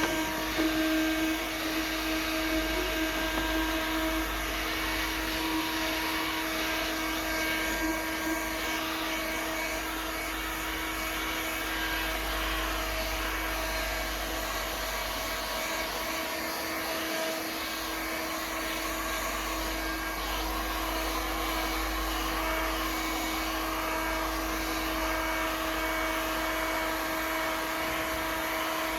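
Heat gun running steadily: its fan blowing a rush of hot air with a steady motor hum.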